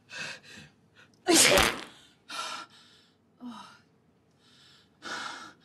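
A person's sharp gasping in-breaths, then one loud sneeze about a second in, followed by several shorter gasping breaths.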